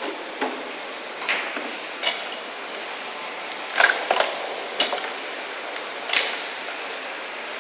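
Child's plastic ride-on pedal car rolling over a polished stone tile floor: a steady rolling hiss with irregular clicks and knocks, several bunched together about four seconds in.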